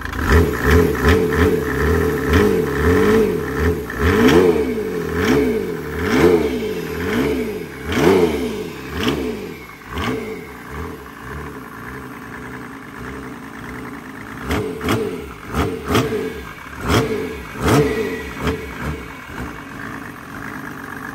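Mercedes OM606 straight-six diesel crate engine with an HX40 turbo, running on a cardboard-tube test exhaust, revved in quick throttle blips by hand at the injector pump. The engine note rises and falls with each blip, about once a second. It drops back to a steadier idle around the middle, then more blips follow.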